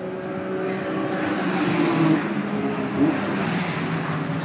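Race car engine approaching along the pit lane, coming in for a pitstop. It grows louder, with two brief peaks about two and three seconds in.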